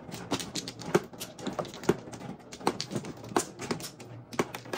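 Plastic mahjong tiles clicking and clacking as players draw, discard and arrange them on the table: sharp, irregular clicks, several a second.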